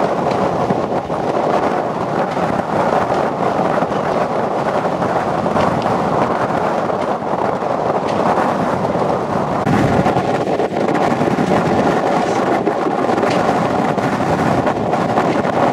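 Storm wind of up to about 50 knots blowing across a moored sailing yacht's deck and rigging, buffeting the microphone in a loud, steady rush with no let-up.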